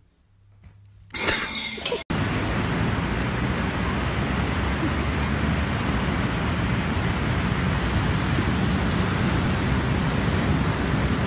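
A short, loud crash about a second in. Then a steady rushing roar of ocean surf that runs on unchanged.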